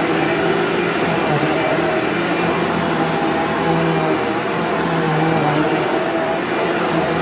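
Vacuum cleaner running steadily on a rug, its motor hum wavering slightly in pitch.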